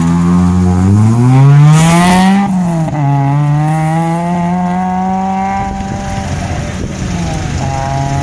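Hillclimb race car's engine launching hard and revving up through the gears. The pitch climbs sharply, drops suddenly at a gear change about two and a half seconds in, climbs more slowly again, then falls away near the end as the car gets further off.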